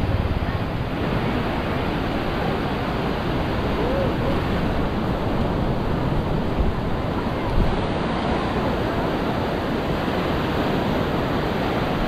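Ocean surf breaking and washing up the beach in a steady rush, with wind on the microphone and faint voices of people nearby.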